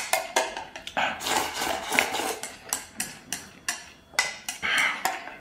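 Wooden chopsticks clicking and scraping against a stainless steel bowl as rice is shovelled into the mouth: many quick sharp taps with short scrapes in between.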